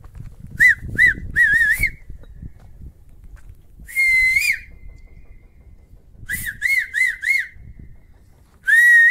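Someone whistling short, loud, wavering notes in groups: three quick ones, a longer one near the middle, four quick ones, and a longer one at the end. Wind buffets the microphone beneath.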